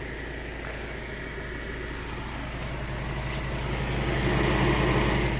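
Ford Transit tipper's Euro 6 diesel engine idling steadily, its level rising over the last couple of seconds as the microphone comes close to the front wheel.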